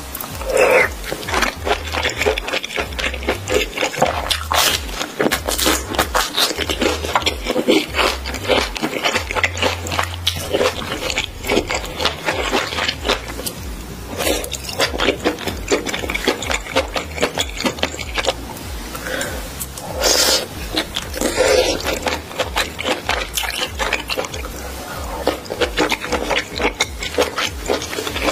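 Close-miked eating sounds: a woman slurping and chewing spicy seafood noodles with octopus, with dense wet smacking and clicks.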